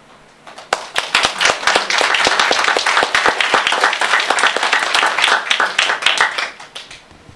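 Audience applauding: many hands clapping, swelling within the first second and dying away about six and a half seconds in.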